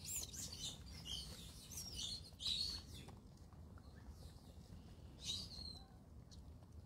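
Birds chirping in short, high, quickly gliding calls: several in the first three seconds and one more about five seconds in, over a faint low rumble.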